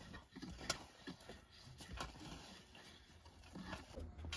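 Faint, scattered light taps and knocks of hand work, with a low hum starting near the end.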